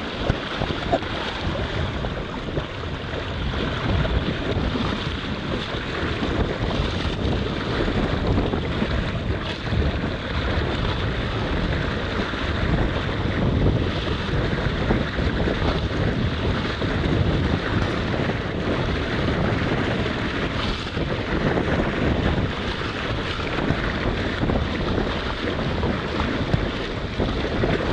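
Sea water rushing and splashing along the lee side of a sailing yacht's hull as it sails heeled hard over, with wind buffeting the microphone.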